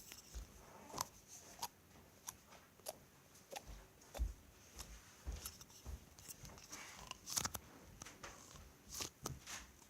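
Slime being pressed and played with in the hands, making a dozen or so faint, sharp pops at irregular intervals as air pockets burst.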